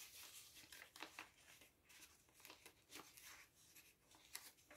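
Faint, irregular rustling and light scraping of paper as fingers handle a card tag and slide it against the pages of a handmade paper journal.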